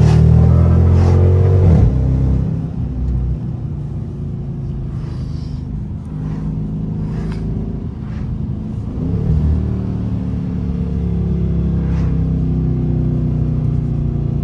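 2019 Dodge Charger R/T's 5.7-litre Hemi V8 accelerating hard for the first two seconds, its note rising in pitch, heard from inside the cabin. It then drops back to a lower, steady cruising drone, with a brief swell about nine seconds in.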